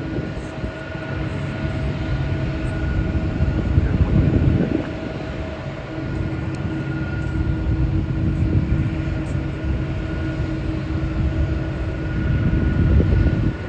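Jet airliner engines running steadily at the airport: a low rumble with a steady whine held over it, swelling louder about four seconds in and again near the end.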